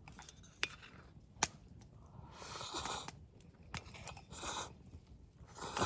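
A person chewing food close to the microphone: a few short crunching chews, with two sharp clicks before them.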